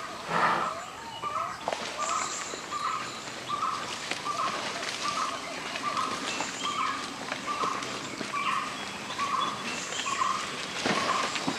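Forest birds calling: one repeats a short note evenly, about every two-thirds of a second, over fainter higher chirps. A brief louder sound comes just after the start.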